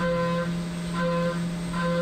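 A CNC mill's 3/8-inch three-flute end mill cutting a 3D adaptive roughing pass: a steady spindle hum with a high whining cutting tone that sounds three times, a bit under a second apart, as the cutter enters and leaves the material. Each whine has the same pitch, the sign of the adaptive toolpath holding a constant tool engagement.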